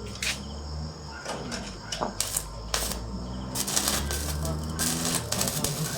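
Stick-welding arc crackling in uneven spurts, thickest in the second half, over a steady low hum.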